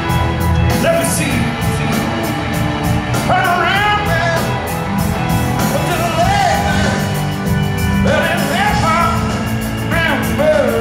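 Live rock band playing loud through an arena PA, with a male lead singer and a steady drum beat.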